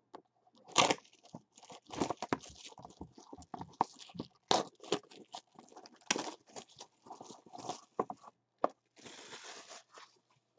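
Plastic shrink wrap being torn off a trading-card box and crumpled, with the cardboard box being handled: irregular crinkling, tearing and scraping, with a longer stretch of rustling near the end.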